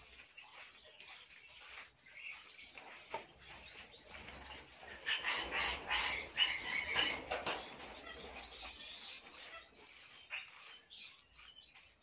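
Hands rubbing and kneading a crumbly egg-and-semolina bird food in an earthenware dish, a soft gritty rustling that is busiest in the middle. Small birds chirp briefly several times in the background.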